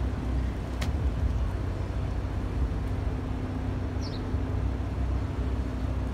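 City street traffic: a steady low rumble of passing vehicles with a constant hum over it, and a sharp click just under a second in.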